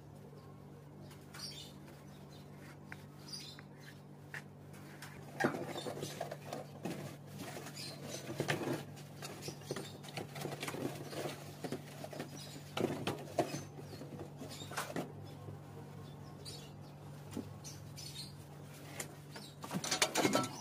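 Rigid clear plastic roofing sheet being handled and slid into place on a metal roof frame: irregular scraping, crackling and knocking of the plastic, starting about five seconds in and loudest near the end, over a steady low hum.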